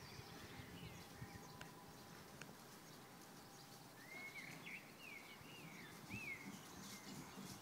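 Faint outdoor quiet with a bird chirping, a short run of rising-and-falling calls in the second half.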